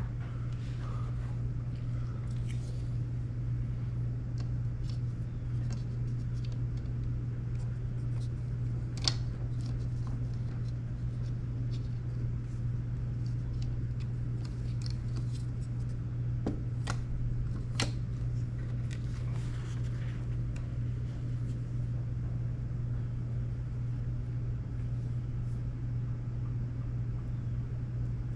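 A steady low hum runs throughout, with a few small clicks and taps of tools and parts being handled, the clearest near 9 s and again around 16 to 18 s.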